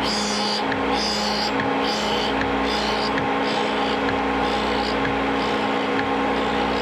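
Drill and tool grinder running with a steady motor hum while its wheel grinds the point of a combined drill and countersink, a short hiss of wheel on steel coming in regular passes about every 0.8 s and growing fainter.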